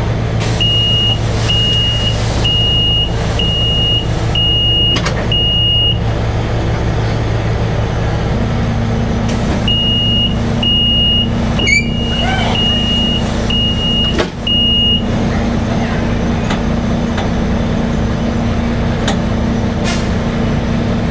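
Beach tram's engine idling steadily while the vehicle stands still. Over it come two runs of six high electronic beeps, about one a second: one run near the start and another about ten seconds in. A second low steady hum joins about eight seconds in.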